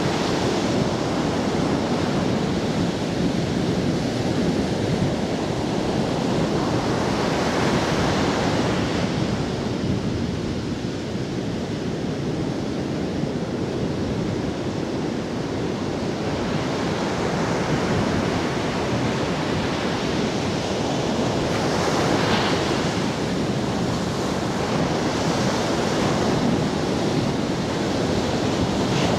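Ocean surf breaking on a sandy beach: a continuous wash of waves that swells and eases, with louder crashes about seven seconds in and again about twenty-two seconds in.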